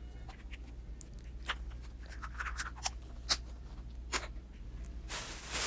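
Scattered light clicks and crinkles of small items being handled, with a steady rustle starting near the end.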